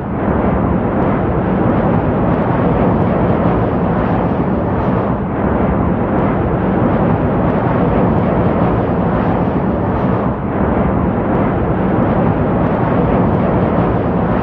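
Steady, loud roar of jet aircraft engine noise, even throughout with only slight dips.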